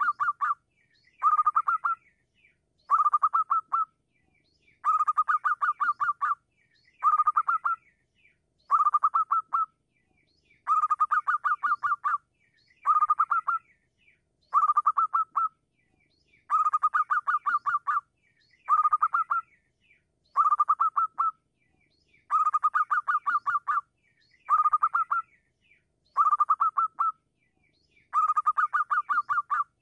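Zebra dove calling: short phrases of quick, stuttering coo notes, each about a second long, repeated about every two seconds with silent gaps between.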